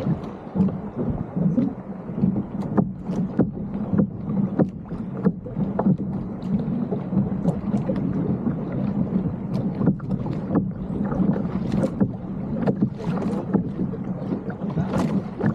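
Water slapping and splashing against the bow and hull of a Hobie sailing kayak under way, with frequent irregular sharp slaps over a steady wash of moving water and wind on the microphone.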